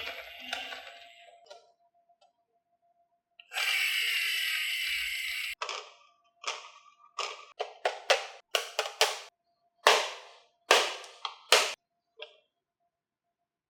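Marbles on a HABA marble run: a steady rolling rattle for about two seconds, then a run of sharp, separate clacks as they drop and knock along the track pieces, the clacks spaced unevenly and stopping about twelve seconds in.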